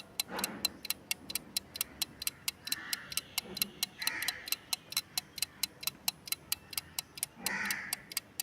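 Clock-ticking sound effect counting down a quiz answer timer: fast, even ticks, about four a second.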